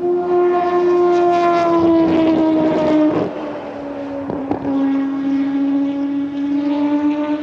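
Mazda 787B's four-rotor rotary engine running, loudest for the first three seconds while its pitch eases down, then quieter and holding a steady pitch.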